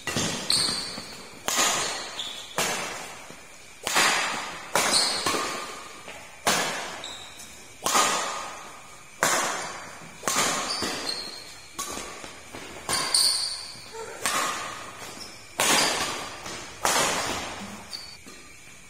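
Badminton rackets striking a shuttlecock in a fast doubles rally, a sharp hit every second or so, each echoing in the hall.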